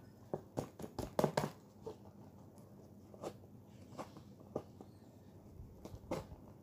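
Light clicks and taps of a hard-shell pencil case and the stationery in it being handled, several close together in the first second and a half, then single ones every second or so.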